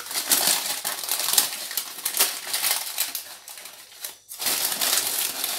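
Sheets of baking parchment crinkling and rustling as hands handle them and pull them back off rolled shortcrust pastry in a tart tin, with a brief pause a little past four seconds in.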